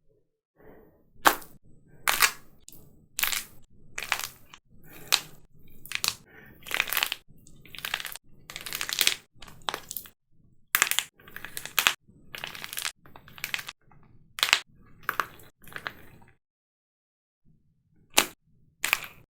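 Hardened plaster clay cracking and snapping apart in a rapid series of sharp cracks, about two a second, with a short silent pause before two final cracks near the end.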